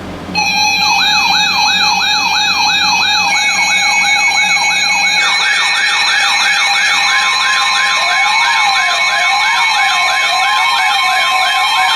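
Several electronic sirens sounding together, cutting in loudly about half a second in. A fast yelp-style sweep rising and falling several times a second runs over a steady alert tone. More siren layers join about three and five seconds in, and a slower wail rising and falling about once a second, with a second steady tone, comes in about seven seconds in.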